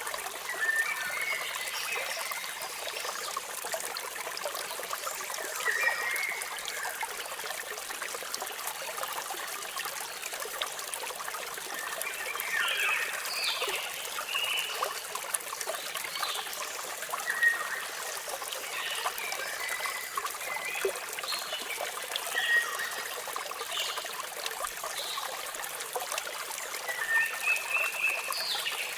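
Steady rush of falling water with birds chirping at irregular intervals over it, the chirps more frequent in the second half.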